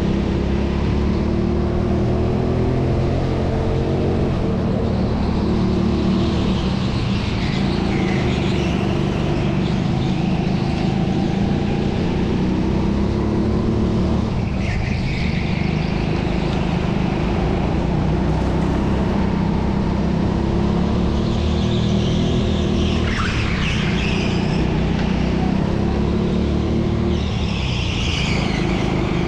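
Indoor racing go-kart's engine running hard and steady, its pitch rising and falling every few seconds, with tyres squealing at times.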